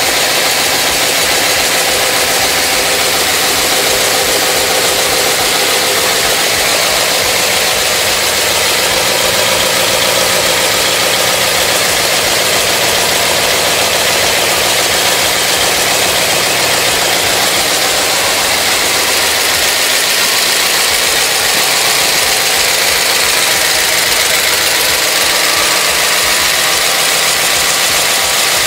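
Freshly rebuilt 383 Mopar big-block V8 on an engine run stand, running at a steady idle through 40 series Flowmaster mufflers.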